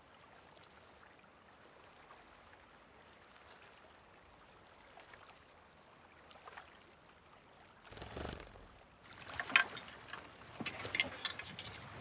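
Faint steady outdoor hiss, then about eight seconds in a brief rustle followed by a run of sharp clicks and knocks from a spotting scope and tripod being handled.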